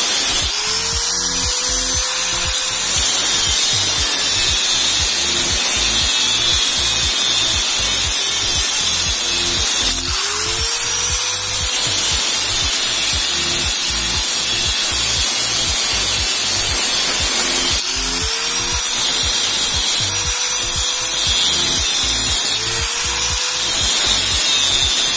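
Angle grinder with a cut-off disc cutting through a steel bicycle sprocket: a steady high grinding hiss, with a short rising whine several times. Background music with a steady beat plays underneath.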